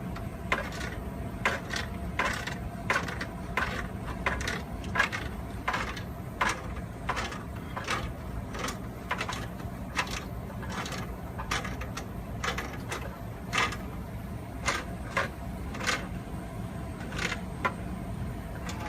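A wrench clicking on the threaded fittings as the flex supply lines are tightened onto a water heater: sharp metallic clicks, irregular, about one or two a second, over a steady low hum.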